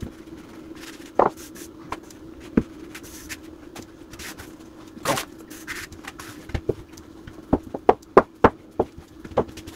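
Homemade pasta dough being worked into a thin sheet on a kitchen countertop, first with a wooden rolling pin and then pressed out by hand: soft rubbing and scattered knocks and taps, coming faster in the second half, over a steady low hum.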